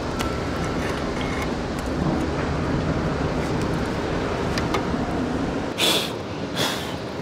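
Steady low outdoor rumble with a few faint clicks. About six seconds in come two short rubbing strokes of a hand cleaning the skylight glass.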